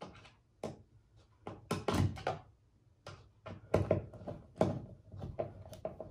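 Handling noise of a transducer mounting bracket and its screws being fitted against a plastic kayak hull: an irregular run of small knocks and clicks, a couple a second.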